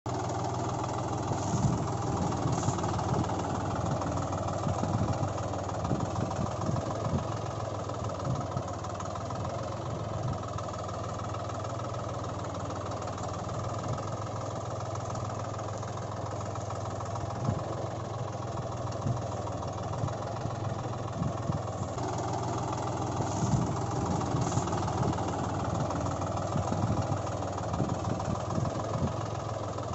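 Tractor engine running steadily at a low, even speed, with a few light clicks now and then.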